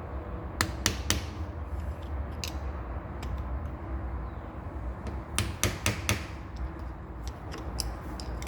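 Sharp metal taps and clinks as a new lower steering-column bearing is worked onto the shaft. A few single taps come in the first seconds, a quick run of about four a little past halfway, and two more near the end, over a steady low hum.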